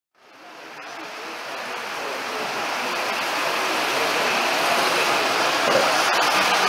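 Vintage O gauge model trains running on the layout, a steady rattling rumble of wheels on track that fades in over the first couple of seconds.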